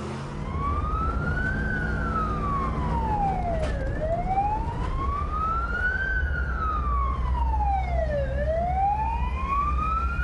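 Emergency vehicle siren in a slow wail, rising and falling about every four and a half seconds, over the low rumble of a vehicle engine.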